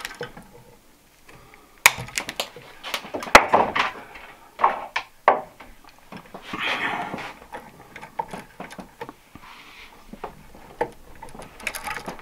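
A wire stripper cutting and stripping copper house wire. There are a few sharp clicks of the tool's jaws, with the rustle and scrape of the wires being handled between them.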